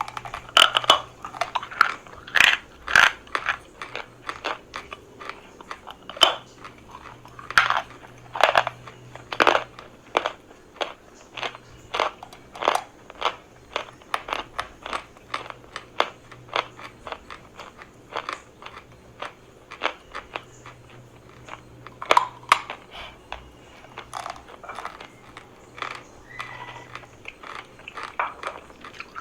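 Chalk being bitten and chewed close to the microphone: irregular sharp crunches, several a second, as pieces snap and grind between the teeth.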